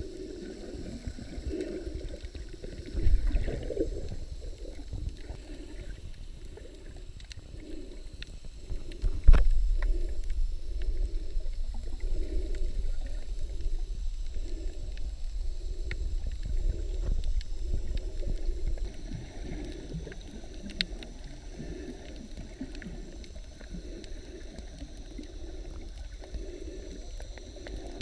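Underwater sound from a camera held below the surface: muffled water noise with a soft pulsing about once a second. A sharp knock comes about nine seconds in, followed by a low rumble that fades after about ten seconds.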